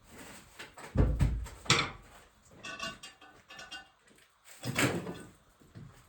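Metal tools and parts clanking and clinking during a transmission teardown: a few separate knocks, the loudest about a second in and near the end, with a brief metallic ringing in between.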